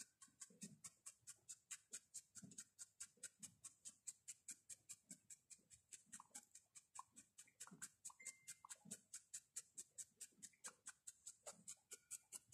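Felting needle stabbing into wool roving on a small figure, a faint, fast, even ticking of about five pricks a second, pulled over the fibres to flatten the folds.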